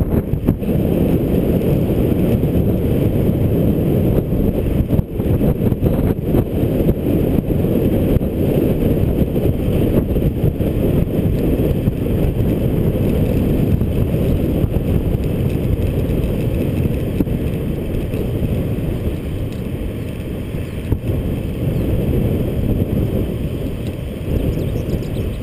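Wind buffeting a GoPro's microphone while coasting fast downhill on a bicycle, a steady dense noise heavy in the low end and unbroken throughout.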